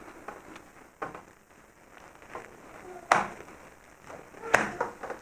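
Soft handling sounds of oiled börek dough being rolled by hand into a tight roll on a work surface. Two sharp knocks stand out about three and four and a half seconds in.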